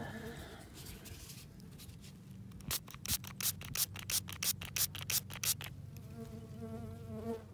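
Hand-held trigger spray bottle squirting a dirt-crusted coin: about a dozen quick sprays in a run of some three seconds, starting nearly three seconds in. A sweat bee buzzes close by throughout.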